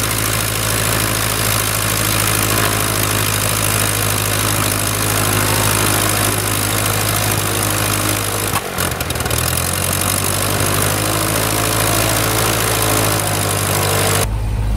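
Cessna 172M's four-cylinder Lycoming aircraft engine and propeller running steadily, freshly started after ten years of sitting. About nine seconds in the sound briefly falters and shifts in pitch, then runs on.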